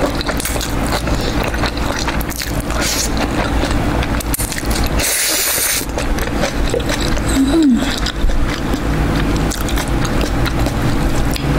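Close-miked eating sounds: slurping jjajangmyeon noodles and chewing, with many small clicks and one hissing slurp about five seconds in, over a steady low hum.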